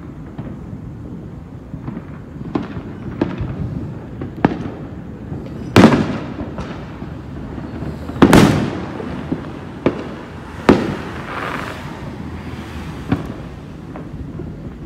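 Aerial fireworks going off: a string of sharp bangs and smaller pops at irregular intervals, the loudest about six and eight seconds in, with a crackle after a bang late on.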